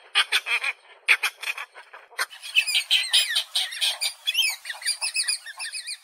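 Cattle egrets calling: groups of short, harsh croaking calls. About two seconds in, this gives way to a denser chatter of overlapping, higher-pitched calls.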